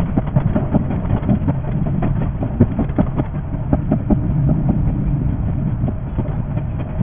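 JR 381 series limited express electric train running on the line, heard sped up: a steady low rumble with a rapid, irregular patter of wheel clicks over the rails.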